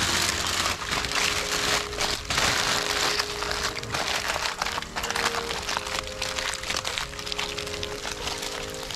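Aluminium foil crinkling and rustling as gloved hands fold and press it into a wrap, with background music of held notes underneath.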